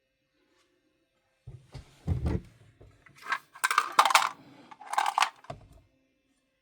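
Small hard objects being handled and set down: a few low knocks, then two short bursts of clattering about a second apart, with a sharp click between them.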